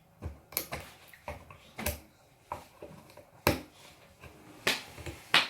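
Hard plastic toy packaging being handled, giving a series of irregular clicks and knocks, the loudest about halfway through and near the end.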